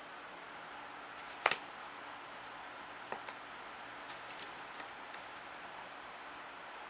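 A green-cheeked conure fiddling with a pen and a paper triangle with its beak: one sharp click about one and a half seconds in, then a scatter of small taps and ticks, over a steady hiss.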